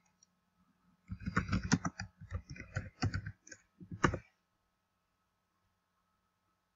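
Typing on a computer keyboard: a quick run of key clicks, starting about a second in and stopping about four seconds in.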